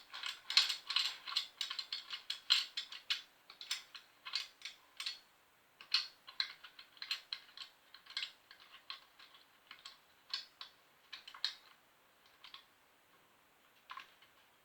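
Irregular metal clicking and clinking of hand tools and mounting hardware as a motor mount is fastened to a BMX bike. The clicks come thick and fast at first and thin out to a few isolated ones near the end.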